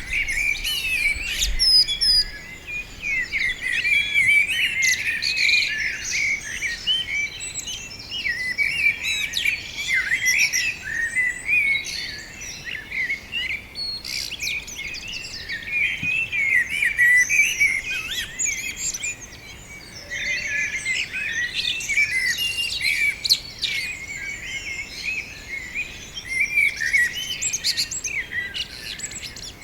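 Many small birds chirping and singing at once: a dense, continuous chorus of short, overlapping high calls and warbles.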